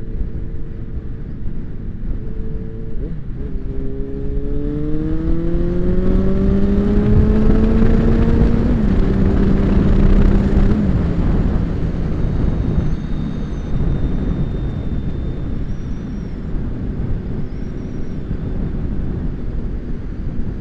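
Big-displacement motorcycle engine pulling hard, its note rising steadily for about five seconds, then dropping in two steps at the upshifts before settling into steady cruising, with wind rush throughout.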